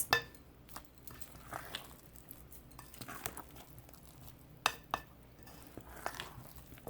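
A spoon or spatula folding muffin batter in a mixing bowl: soft scraping and squelching with scattered light clinks against the bowl, two sharper clinks near the end.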